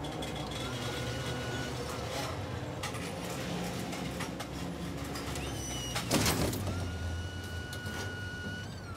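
Forklift engine running with the whine of its hydraulic lift, which rises, holds and falls away twice, over scattered clicks and knocks. A loud clatter comes about six seconds in.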